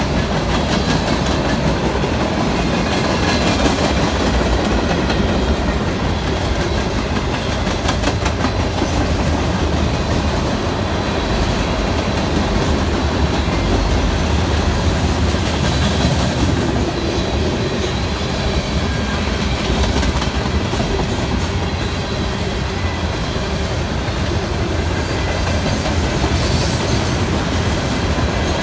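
Freight cars rolling past on steel wheels: a steady rumble of wheels on rail with clacking as the trucks pass over rail joints.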